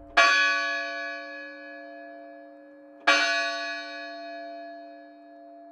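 Two bell-like chimes, each struck once about three seconds apart and left to ring out and fade slowly.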